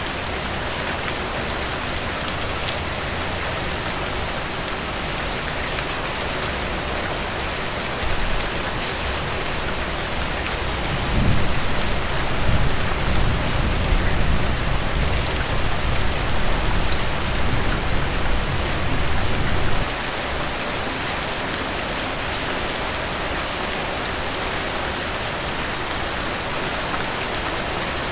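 Heavy rain falling steadily, with a patter of individual drops. About a third of the way in, a low rumble of thunder rises under the rain, and it cuts off abruptly about two-thirds of the way through.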